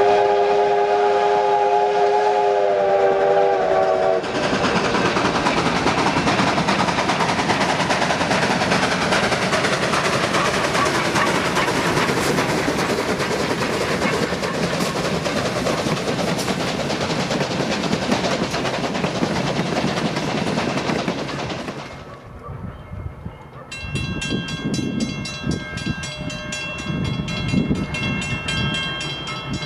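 A train: a horn chord held for about four seconds, then a long, loud passing rush of noise that fades about 22 seconds in, followed by high steady tones with a fast, even ticking.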